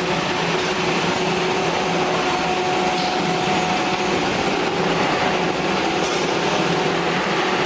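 CNC wood router running, its spindle cutting into wood with a steady, noisy whir and a faint, steady tone.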